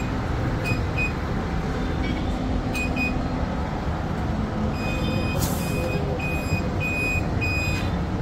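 Electronic beeps from a digital nitrogen tyre inflator: a few short beeps in the first three seconds, then a run of five longer beeps about half a second apart, with a short hiss of air about five and a half seconds in, over a steady rumble of traffic.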